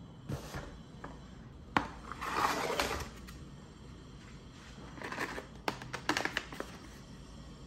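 Paper bags rustling and crinkling as they are handled and set down on a table, with a sharp tap near the start and a run of small clicks and crinkles about two-thirds of the way through.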